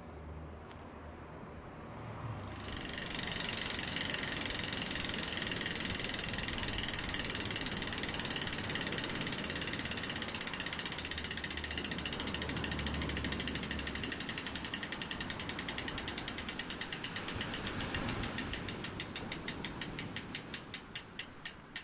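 Bicycle freewheel ticking as a spun rear wheel coasts down: the pawls click in a rapid, even buzz starting about two seconds in, then slow steadily until the ticks come apart one by one near the end.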